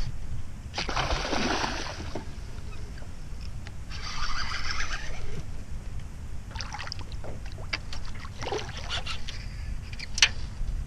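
Hooked redfish splashing and thrashing at the water's surface. Two longer splashes come in the first half, then a scatter of short splashes and knocks, over a steady low wind rumble on the microphone.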